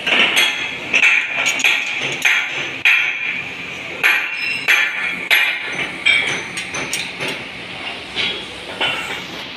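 Metal striking metal: irregular hammer-like clanks on steel parts, about one or two a second, each with a short bright ring.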